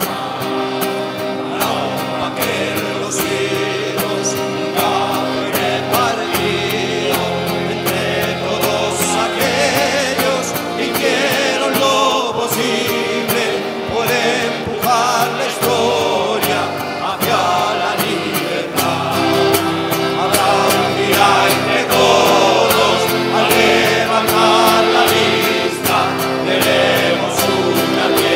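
A crowd of voices singing a song together, accompanied by accordion and strummed acoustic guitars, with a steady beat.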